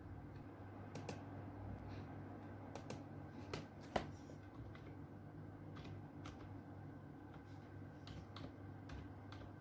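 Scattered light clicks and taps of small objects being handled, the sharpest about four seconds in, over a steady low hum.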